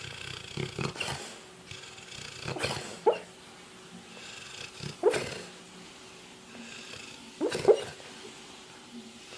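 A sleeping, dreaming dog making short muffled vocal sounds in its sleep, one every two to three seconds, the loudest about three seconds in and near the end.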